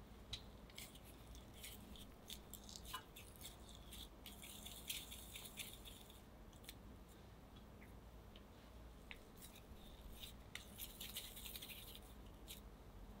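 Faint soft rustling and light clicks of hands rolling chilled chocolate chip cookie dough into balls between the palms, with two longer stretches of rubbing.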